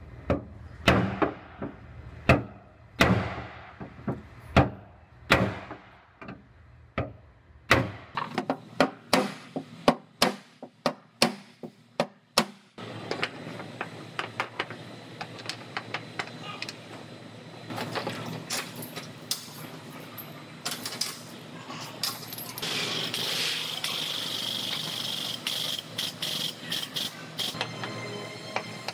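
Body hammer striking the dented steel quarter panel, worked from behind with a body spoon to knock out the damage: a series of sharp, ringing metal blows about a second apart, coming quicker about eight seconds in. After about thirteen seconds the hammering stops, giving way to steady background noise with small clicks and a high hiss near the end.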